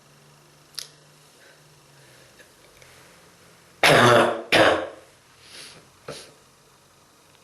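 A man coughing: two hard, harsh coughs in quick succession about four seconds in, then two fainter ones. It is the chesty cough of a strong bronchitis.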